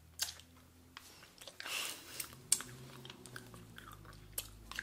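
Mouth sounds of people sucking on Warheads sour candies: scattered wet clicks and smacks of the candy against teeth and tongue, with a longer hiss a little under two seconds in and a sharper click soon after.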